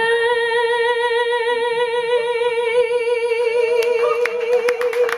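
A woman singing one long, held note with vibrato, the closing note of the song, steady in pitch throughout.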